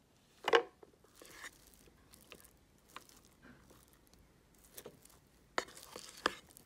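Plastic rice paddle stirring and fluffing freshly cooked rice in a rice cooker's inner pot: soft scraping and rustling, with a few sharp taps, the loudest about half a second in.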